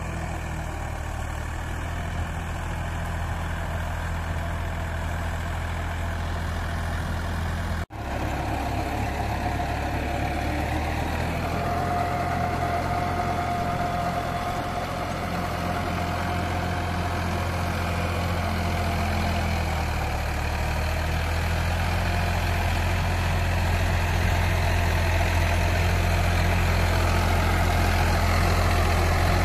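Sonalika tractor's diesel engine running steadily under load while driving a 72-blade rotavator, with a sudden brief break about eight seconds in.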